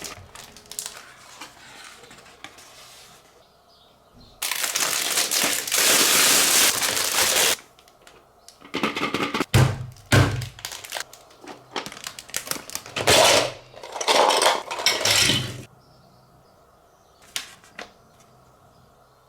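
Foil wrapper of a Kinder chocolate Easter egg being torn off and crinkled in a long noisy stretch, then bursts of crackling with a dull knock as the chocolate egg is cracked open.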